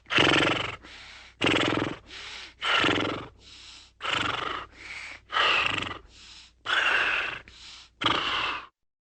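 A horse breathing hard in a steady rhythm: about seven loud, rasping breaths, each followed by a softer one, roughly one pair every second and a half. The breathing cuts off abruptly near the end.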